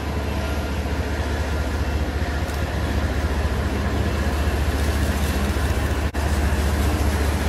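Several BNSF diesel locomotives on a freight train passing close by: a steady deep engine rumble that grows slightly louder.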